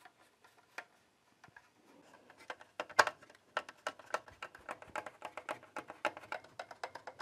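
Small clicks and metallic taps of hands and a screwdriver working the sheet-metal cover of a 3D printer's switching power supply, trying to pry it open. The clicking is sparse at first and becomes a quick, uneven run from about two seconds in.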